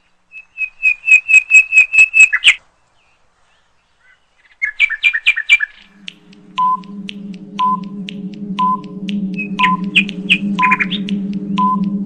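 Two runs of quick, high, bird-like chirps in the first half. About halfway in, a steady low hum starts, with a countdown timer ticking about once a second over it; more scattered chirps come in near the end.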